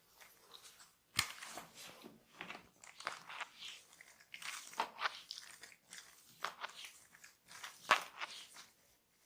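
Hands working over skin and hair in a barber's massage: crunchy rubbing and scratching strokes, with two sharp cracks, one about a second in and one near the end.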